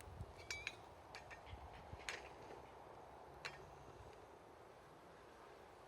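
A handful of faint metallic clinks and ticks from camp cookware being handled, spread over the first three and a half seconds; the two near the start ring briefly. Otherwise a quiet background.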